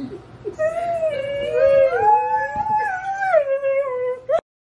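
Borzoi howling: one long wavering howl that rises and falls in pitch and cuts off suddenly near the end.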